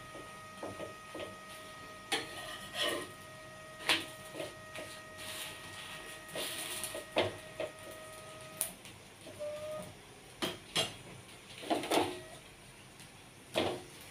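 Metal spatula scraping and tapping on a griddle as a naan is pressed and turned, with sharp clicks every second or two. A steady hum underneath cuts off about eight and a half seconds in.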